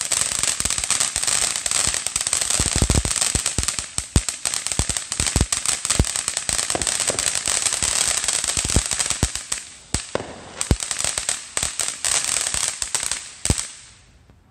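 Ground fountain firework spraying sparks with a steady hiss and dense crackling, dipping briefly about two-thirds of the way through and dying out near the end.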